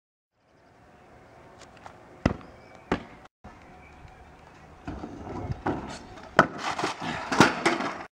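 Stunt scooter knocking and clattering on hard ground: two sharp knocks a few seconds in, then a quick run of louder bangs and clatter in the last few seconds as the rider falls and the scooter hits the asphalt.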